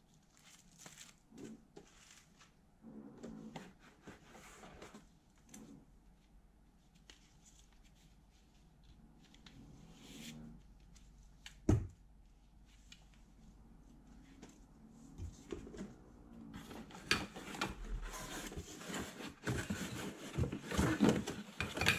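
Unboxing handling noises: a plastic zip bag of paper manuals and cardboard packaging rustling under the hands, with a single sharp knock about halfway through. Near the end, denser and louder cardboard scraping and rustling as the metal detector is pulled out of its box.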